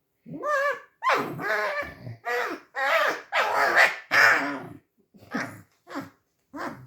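Pet red fox squeaking: a run of about nine short, wavering, pitched calls in quick succession, the sound of an annoyed fox while being handled.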